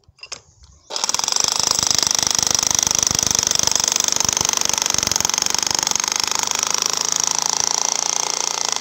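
Hilti electric demolition hammer with a chisel bit breaking into a stone-and-mortar wall: it starts about a second in and runs on as a loud, rapid, steady hammering.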